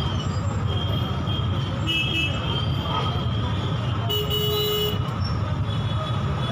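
Busy street traffic rumbling steadily, with vehicle horns tooting several times. One horn is held for just under a second about four seconds in.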